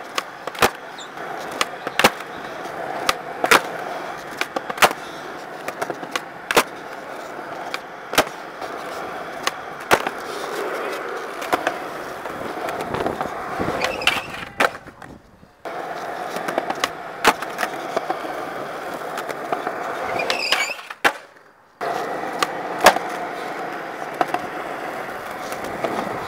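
Skateboard wheels rolling on smooth concrete, broken by sharp clacks every second or two as the tail pops and the deck and wheels slap back down on landings. It plays as several separate tries with abrupt cuts between them.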